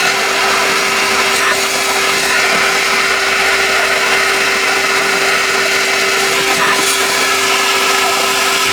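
A small electric motor of a cleaning machine running steadily: a constant hum over an even hiss, with no change in speed.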